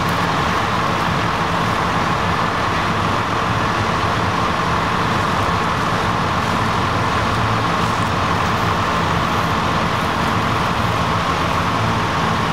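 Two New Holland combine harvesters threshing wheat. Their diesel engines and threshing machinery run in a steady, unbroken drone.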